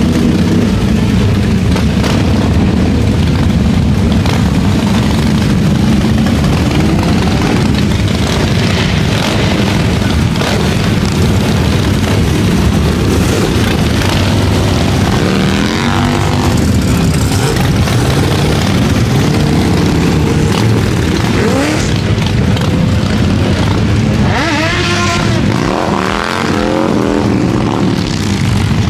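Loud, continuous car engine running at high revs, with the revs swinging up and down a few times in the second half.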